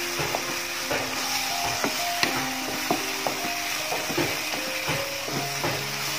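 Spatula scraping and knocking against a non-stick pan about twice a second as soya chunks in wet masala are stirred, over a light sizzle. Soft background music with held notes plays underneath.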